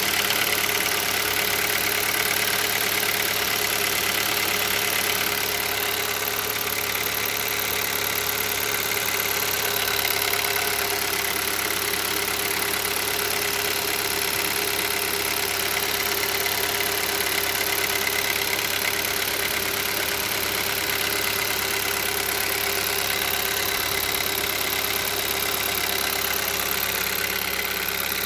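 Hyundai Solaris 1.6-litre four-cylinder petrol engine idling steadily while cold, with a knock running through the idle; the owner does not know its cause.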